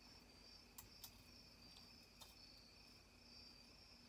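Near silence: a few faint clicks as a small metal washer is fitted into the groove of a chainsaw bar, over a faint steady high-pitched hum.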